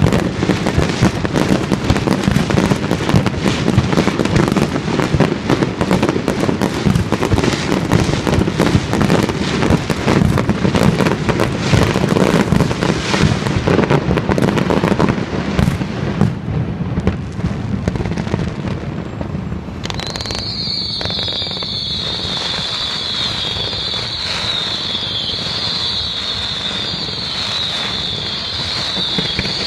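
Fireworks display: a dense, continuous barrage of bangs and crackling for about twenty seconds. The bangs then thin out and a steady high-pitched whistle with a slow waver holds through the rest.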